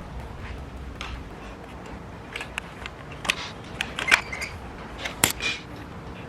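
Hand tools and metal engine parts clicking and clinking during teardown of a BMW S50 engine, with a handful of sharp metallic knocks in the second half.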